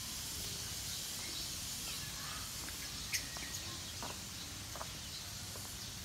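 Outdoor garden ambience: a steady hiss with a few short, scattered bird chirps.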